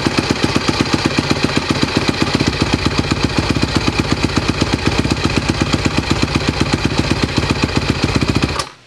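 Honda CRF150R's freshly rebuilt four-stroke single-cylinder engine idling with a steady, even exhaust pulse, running smoothly. The sound cuts off abruptly near the end.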